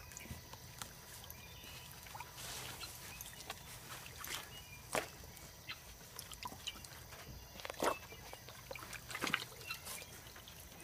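Dogs splashing and pawing in shallow water while hunting tadpoles: scattered small splashes and drips, with sharper splashes about five, eight and nine seconds in.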